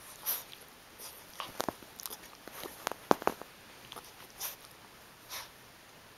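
An 11-week-old pit bull–shepherd mix puppy licking and nibbling at skin close to the microphone: scattered wet mouth clicks and smacks, with a quick cluster about three seconds in, between a few short breathy puffs.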